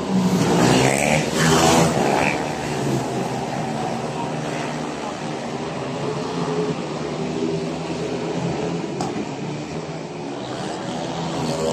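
Speedway motorcycles' single-cylinder engines: loud in the first couple of seconds as a bike passes close with its pitch sweeping, then running on more quietly from farther round the track.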